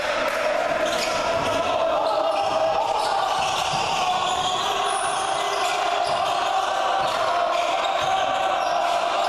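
Basketball bounced on the hardwood gym floor by the shooter at the free-throw line, over a steady din of voices in the hall.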